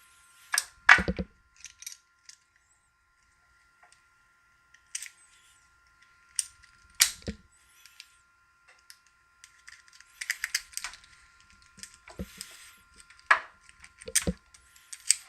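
Lock pick rake scraping and clicking in the keyway of a Master Lock No. 1 laminated pin-tumbler padlock, in quick irregular bursts, with a few sharper metallic knocks as the lock is handled.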